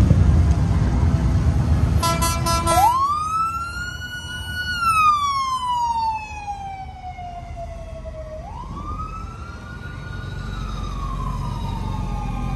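A parade emergency vehicle's siren. It winds up to a steady high pitch, holds it, then slides slowly down, and winds up and slides down a second time. A short pulsing horn blast comes about two seconds in, just before the first rise, and engine rumble from passing vehicles sits underneath.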